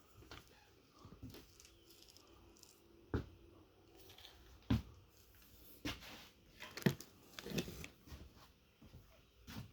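Scattered knocks, clicks and rustles of small objects being handled and moved about, roughly one every second or so.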